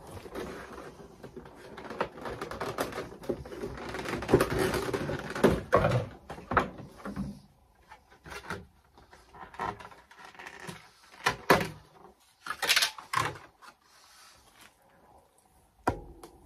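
Clear plastic figure packaging being handled: crinkling and crackling with many sharp clicks for the first several seconds, then scattered clicks and knocks with quiet gaps in between.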